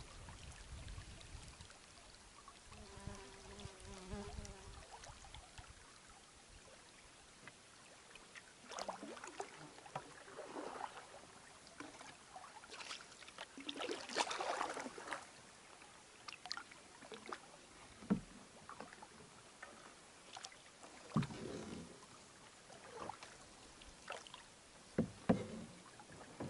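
Canoe being paddled on calm river water: irregular splashes and drips from the paddle, and a few sharp knocks in the second half. Light wind rumbles on the microphone for the first few seconds.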